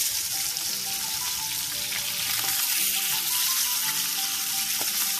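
Pangas fish steaks sizzling steadily as they shallow-fry in hot oil in a frying pan, being turned over with a metal spoon, with a light click near the end. Soft background music plays underneath.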